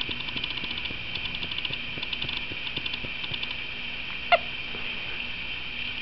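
A baby's single short, squeaky hiccup about four seconds in, like a squeak toy. Rapid mechanical clicking comes and goes in the background.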